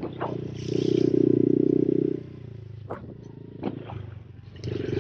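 Honda CRF110 pit bike's small single-cylinder four-stroke engine riding under throttle. It is loud for about a second and a half, backs off to a quieter run for a couple of seconds, then opens up again near the end. A few sharp knocks are heard along the way.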